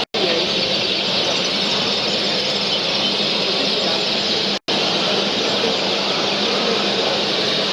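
A dense, steady chorus of many canaries chirping and singing at once, a high continuous din of bird calls, broken twice by a split-second cut to silence.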